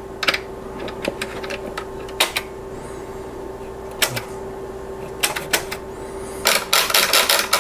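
Clicks of a Tektronix 485 oscilloscope's front-panel rotary switches and pushbuttons being worked by hand: scattered single clicks, then a quick run of clicks near the end, over a steady hum.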